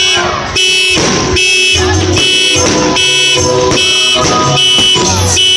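Aerial fireworks going off in quick succession, a loud bang about every half second.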